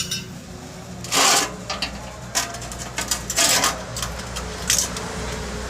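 Several short hisses, each under half a second, with light clicks between them over a steady low hum, heard while a freezer evaporator line is under a 110 PSI pressure test for a leak.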